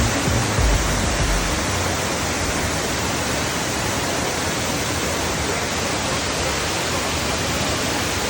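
Waterfall's water rushing steadily, an even hiss across all pitches, with a low rumble in the first second.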